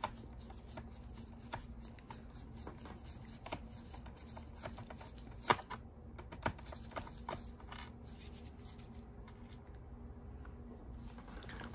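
Scattered light clicks and ticks of a precision screwdriver turning a small screw out of a laptop's bottom cover, with a couple of sharper clicks about midway, over a faint steady hum.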